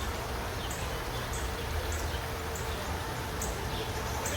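Outdoor ambience: short, high-pitched chirps repeating one to two times a second over a steady low rumble.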